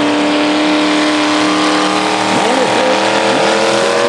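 Chevrolet square-body pickup race truck's engine running hard at high revs through a mud pit, a loud, steady note with a few brief wavering dips and rises in pitch about halfway through.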